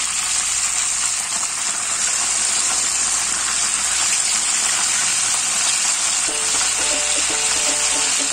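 Hot oil sizzling steadily around a whole chicken deep-frying in a wok. Background music comes in about six seconds in.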